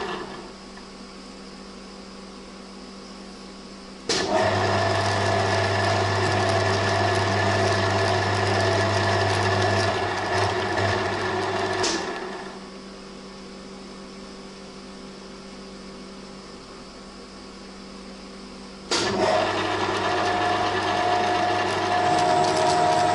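TV-4 benchtop lathe running with its feed gearbox and lead screw engaged for thread-cutting, its motor humming and gears whirring. It is switched off and on: it stops within the first second, starts abruptly about four seconds in, runs for about eight seconds and winds down over a second, then starts abruptly again near the end.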